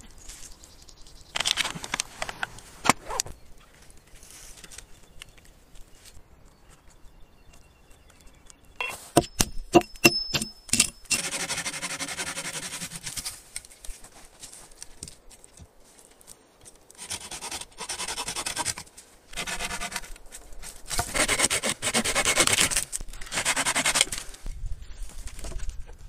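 Wooden poles being worked by hand: a few knocks near the start, a cluster of sharp knocks of wood on wood about nine seconds in, and several long stretches of rhythmic rasping as a hand tool cuts into a wooden pole.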